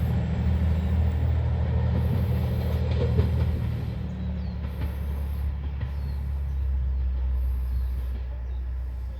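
Diesel railcar's engine running with a steady low rumble, its note changing about three and a half seconds in and easing off slightly towards the end.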